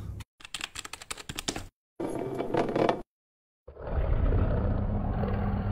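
Edited sound effects: about a second and a half of crackling clicks, a short burst a second later, then, starting about two-thirds of the way in, a low rumbling roar: a dragon's roar sound effect.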